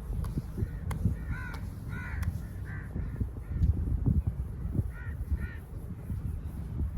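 Crows cawing, three caws in quick succession and then two more a couple of seconds later. Under them run steady low thuds and rubbing from hands working on a body during a vigorous massage.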